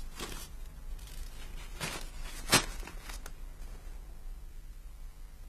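Paper banknote rustling and crinkling as it is handled and laid out on a table, with one short sharp knock about two and a half seconds in.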